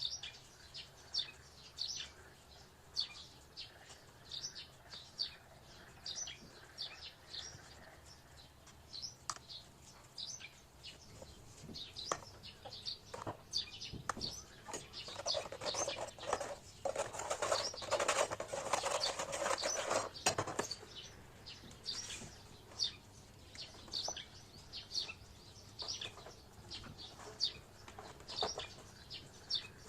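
A small bird chirping repeatedly, short high chirps about twice a second. From about fifteen to twenty seconds in, a louder noisy rustling sound rises over the chirps.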